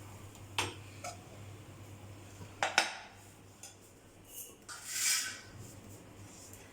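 Metal kitchen utensils and pans clinking and knocking a few times, the loudest a sharp double knock about three seconds in, followed by a short rasping, scraping noise about five seconds in.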